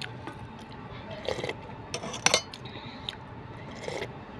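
Metal spoon clinking and scraping against a stainless steel bowl of rice: a few separate clinks, the sharpest about two seconds in.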